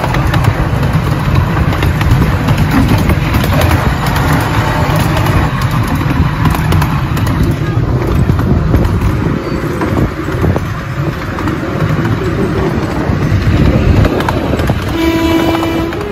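Miniature railway train running along its track: a steady low rumble of the locomotive and wheels, with scattered clicks. Near the end the train's horn toots.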